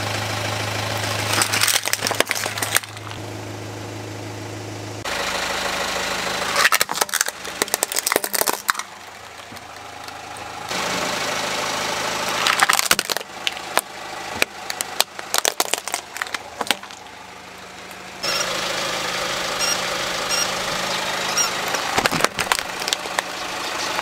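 Car tyre rolling over hard plastic toys, crushing them with clusters of sharp cracks and snaps, over the low steady hum of the car's idling engine.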